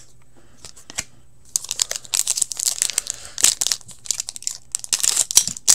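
Foil wrapper of a hockey card pack crinkling and tearing as it is ripped open. It starts about a second and a half in, after a quiet start broken by a single click.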